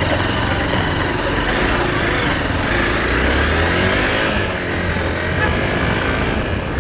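Hero Xpulse 200's single-cylinder engine pulling away and accelerating, its pitch rising about three to four seconds in, over a steady rush of road and wind noise.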